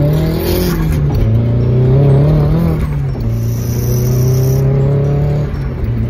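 Nissan Silvia S14's engine accelerating hard through the gears, heard from inside the cabin. Its pitch climbs in each gear and drops at the upshifts: about a second in, about three seconds in, and again shortly before the end.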